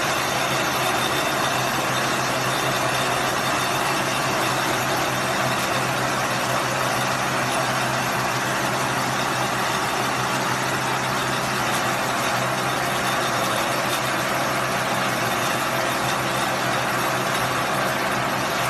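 Silage baling machine running steadily: a constant engine-like drone with a low hum under it.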